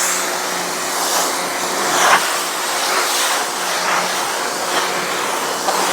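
Electric pressure washer running steadily, a constant motor hum under the hiss of the water jet.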